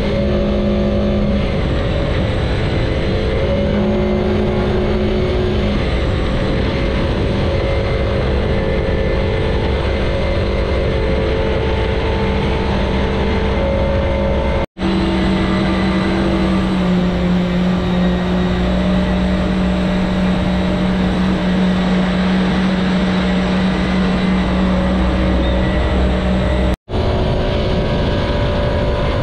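Engine of a jetski-powered water car running hard and steady, its pitch holding and then shifting in steps as the throttle changes. The sound cuts out abruptly twice, once around the middle and again near the end.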